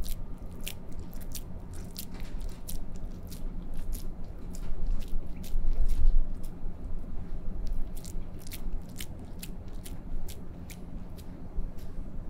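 Ground meat for kabab koobideh being squeezed and pressed by a wet hand along a flat metal skewer: a steady run of small, irregular wet smacks and clicks.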